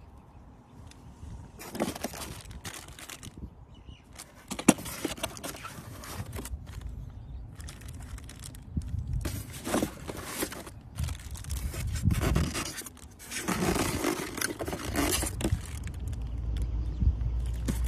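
Parts of a metal detector being handled and lifted out of a foam packing insert: irregular rustling and crinkling of plastic packaging and scraping against the foam, with scattered clicks and knocks. A low rumble comes in near the end.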